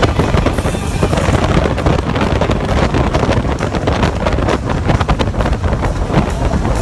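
Harley-Davidson Electra Glide V-twin engine running at highway cruising speed, heard from the rider's seat, with heavy wind buffeting on the microphone.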